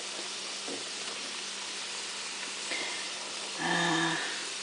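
Battered haddock deep-frying in a pot of hot oil: a steady sizzling hiss. About three and a half seconds in, a brief pitched sound lasts about half a second.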